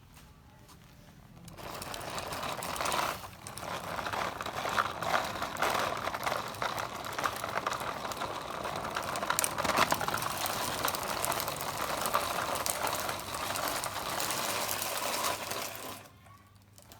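Toy RC car running: a small electric motor and plastic gears whirring with a busy rattle. It starts about a second and a half in, dips briefly, and stops about a second before the end.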